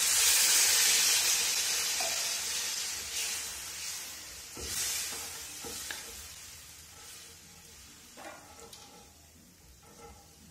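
Water poured into a hot kadhai of fried potato-tomato masala sizzles loudly, the sizzle fading steadily over several seconds. A metal spatula stirs the curry, with a few short scrapes partway through.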